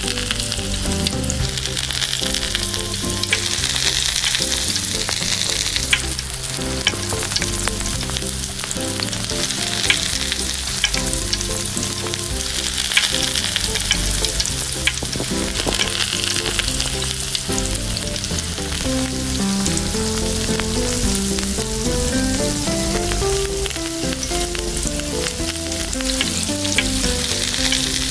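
Tomato rings and a beaten egg mixture sizzling in oil in a tiny pan, a steady hiss with scattered small pops and crackles.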